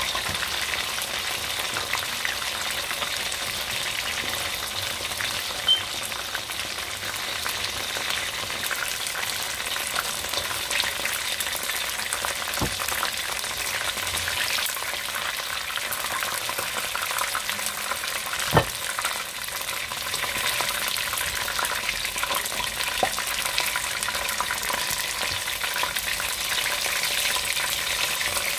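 Chicken wings deep-frying in hot oil, sizzling steadily, with a few sharp clicks of the metal tongs knocking against the pot as the pieces are turned; the loudest click comes about two-thirds of the way through.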